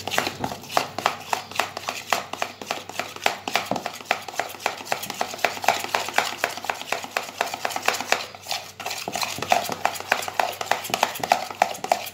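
A hand beating wet, sticky dough in a glass bowl: quick, repeated wet slaps and squelches, several a second, with a brief pause about two-thirds through. The fermented yeast dough and the cooked flour dough are being worked together until smooth and free of lumps.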